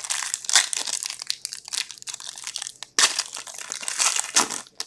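Foil wrapper of a hockey card pack being crinkled and torn open by hand, in two spells with a short pause about three seconds in.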